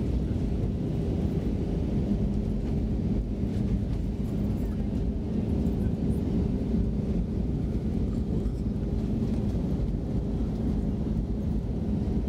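Steady cabin noise of an Airbus A320 in flight: jet engine drone and rushing air with a low, even hum.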